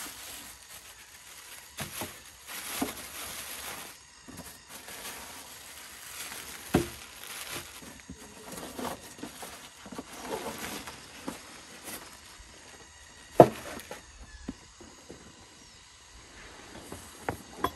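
Irregular rustling and scraping with scattered sharp knocks, the loudest about two-thirds of the way through, over a faint steady high insect drone.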